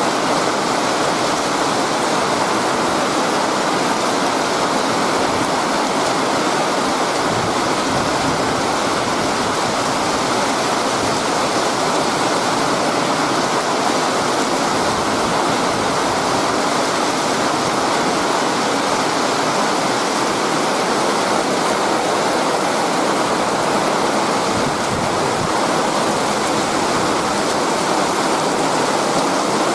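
Steady rain shower, a heavy sprinkle, falling as an even, unbroken hiss.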